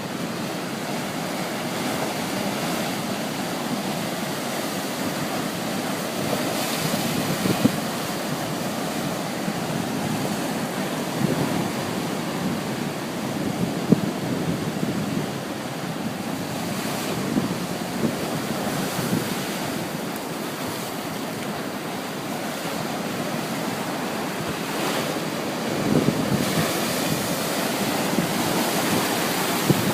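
Ocean surf: waves breaking and washing in a steady rush that swells every several seconds, with wind buffeting the microphone.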